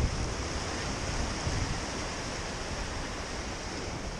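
Ocean waves washing and breaking over jetty rocks, with a low rumble of wind on the microphone.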